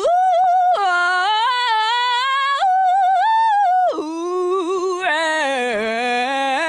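A woman singing a cappella in showy, drawn-out runs, holding long notes with a wide, fast-wobbling vibrato and sliding between pitches, with a short break about four seconds in. It is an over-ornamented pop vocal, the kind called out as sounding terrible.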